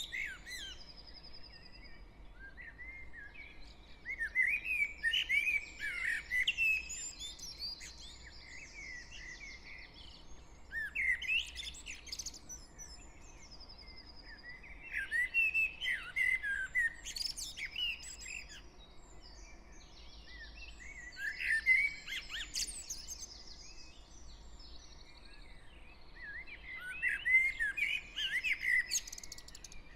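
Dawn chorus of garden birds. One bird close by sings quick, varied phrases of two or three seconds, about every five or six seconds, while fainter, higher songs and calls from other birds fill the gaps.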